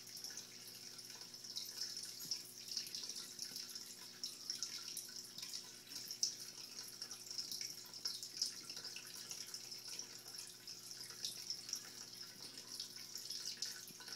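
Aquarium filter return water pouring into a turtle tank: a steady trickling splash full of small drip-like plinks, over a faint steady low hum.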